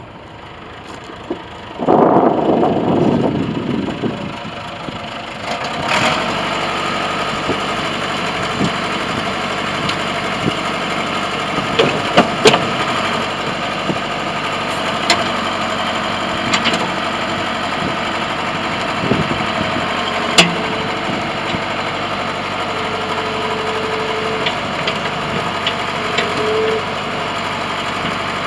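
Caterpillar 416 backhoe loader's diesel engine. A loud rough burst comes about two seconds in, then from about six seconds the engine runs at a steady idle, with scattered clicks and knocks.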